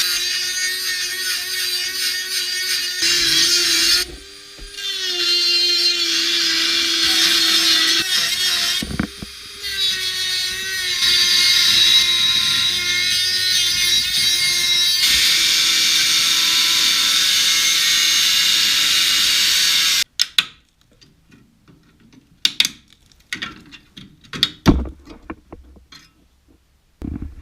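Handheld power tool running against the steel of the bus's underside, a steady high-pitched grinding with two brief dips in speed, then stopping suddenly about 20 seconds in. Scattered clicks and knocks follow.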